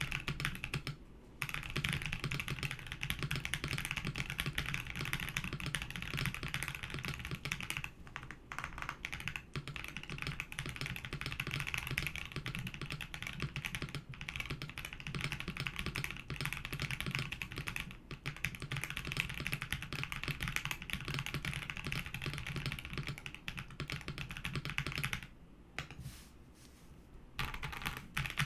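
Typing on a KBD67 Lite R3 mechanical keyboard fitted with lubed Gazzew Boba U4T tactile switches: a steady stream of key presses. The typing pauses for about two seconds near the end, then resumes.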